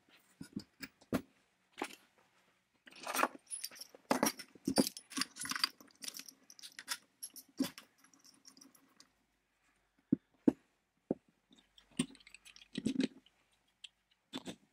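A steel bearing puller being handled and set up: metal jaws, bolts and forcing screw clinking and clacking against each other and the work surface. The clinks come thick in the first half, then only a few single sharp clicks as the puller is fitted onto the bearing of the electric motor's armature shaft.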